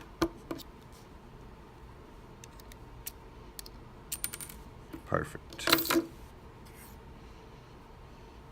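Small metal parts of a dimple lock clicking and clinking as it is pried apart with a tool. There are three sharp clicks at the start, light ticks in the middle, and a louder metallic clatter about six seconds in as a part comes free.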